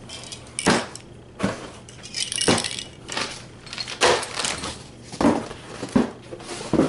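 Clear plastic bag crinkling as it is handled and laid on a table, and two metal spray-paint cans set down on the tabletop, giving a run of sharp knocks and clinks.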